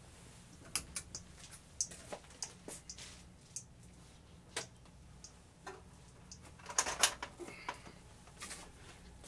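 Light clicks and knocks from objects being handled, scattered and irregular, with a brief denser clatter about seven seconds in.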